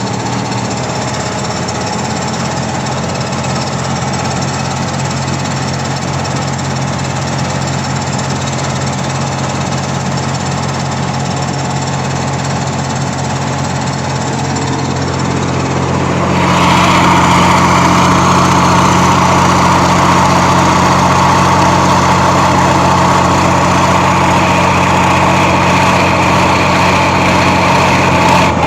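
Kirovets K-701 tractor's diesel engine running steadily with a low, even drone. About sixteen seconds in it gets louder and a strong higher-pitched hum joins in, as the engine picks up revs.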